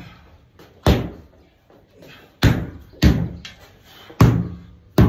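Sledgehammer striking a large tractor tire: five heavy thuds at an uneven pace, the last right at the end, each followed by a short echo.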